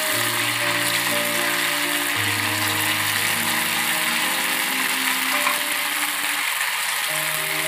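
Rice-dough balls deep-frying in hot oil in a steel kadai: a dense, steady crackling sizzle. Background music with long held notes plays underneath.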